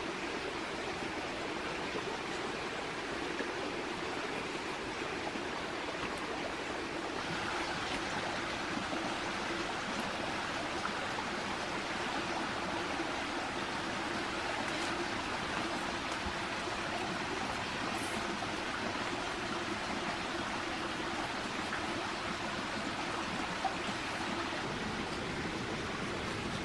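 A forest stream flowing, a steady, even rush of water.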